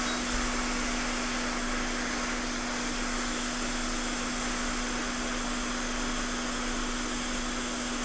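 Hot-air rework station blowing steadily at heat 200 and air setting 120, with a constant motor hum under the rush of air. It is blowing leftover underfill off a phone logic board.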